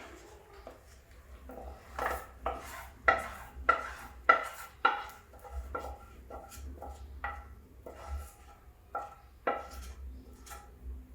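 A spoon knocking and scraping against a pan in a run of ringing clinks, about two a second and loudest in the first half, as thick ginger-jaggery syrup is scraped out onto a plate.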